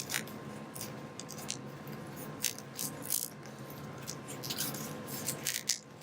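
Irregular light clicks and taps of a plastic 1/12-scale action figure being handled and posed by hand.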